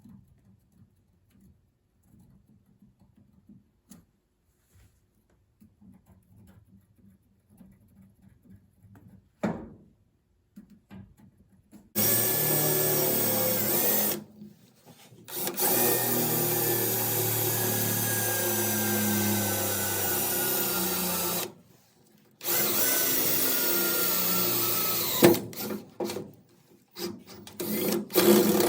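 Power drill running in three long runs of several seconds each, with short pauses between; before it starts, about twelve seconds in, there are only faint handling taps and one knock.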